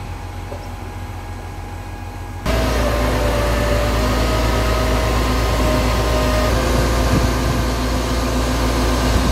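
A 55-tonne Liebherr mobile crane's diesel engine running with a steady low drone while it lowers its man basket. The drone gets abruptly louder about two and a half seconds in, and a thin steady whine rides over it for the next few seconds.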